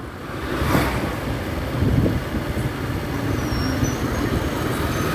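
Motorcycle engine running steadily at low riding speed, with the noise of a busy street's traffic and passing scooters around it.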